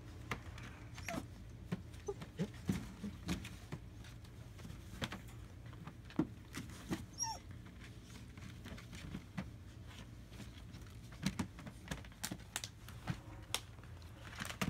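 German Shepherd puppies playing in a hard plastic wading pool: irregular scuffling and tapping of paws and claws on the plastic, with a few brief whimpers and yips, over a steady low hum.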